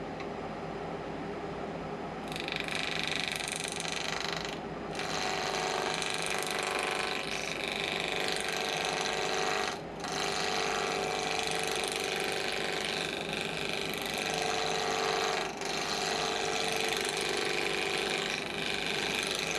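Wood lathe running with a cedar blank spinning; about two seconds in, a thin hand-held turning tool starts cutting into the wood, a steady scraping cut with a ringing whine, lifted off briefly three times. The blank is being turned down for a small sphere, the duck's head.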